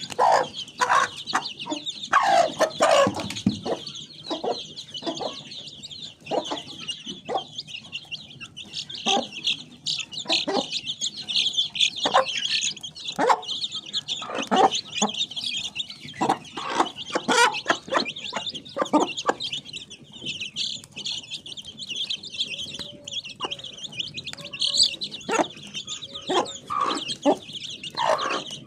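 Small chickens clucking in many short, irregular calls, over a continuous high-pitched chatter.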